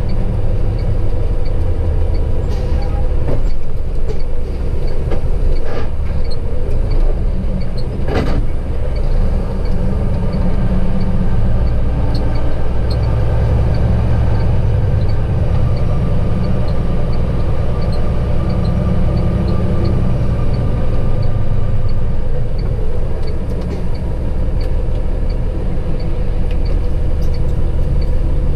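Truck's diesel engine heard from inside the cab while driving, a steady low drone with road noise. A faint, regular ticking runs under it, and there is a single sharp knock about eight seconds in.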